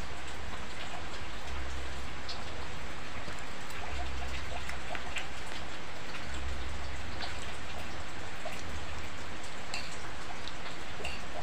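Steady rain, drizzle mixed with heavier rain, falling as an even hiss, with scattered light ticks.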